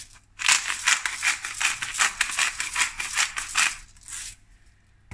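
Black pepper being ground from a pepper mill: a fast rattling run of grinding clicks for about three and a half seconds, then one short last burst.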